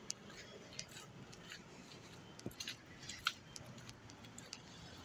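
Faint, scattered short clicks and taps over a low steady background.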